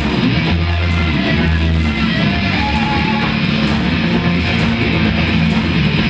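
Live rock band playing: electric guitar and bass guitar together, the bass holding low notes that change every second or so.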